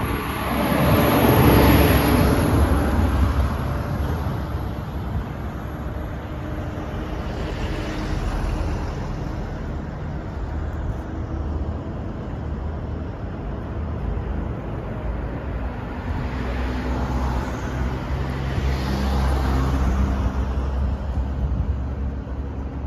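Low rumble of vehicle engines and road traffic, with vehicles swelling past a few times, the loudest about a second or two in.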